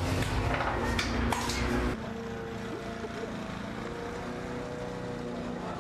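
Low rumble of a bus passing, with a few sharp knocks and clicks. About two seconds in this gives way to a quieter steady hum: a Karsan Atak city bus's diesel engine idling at the stop.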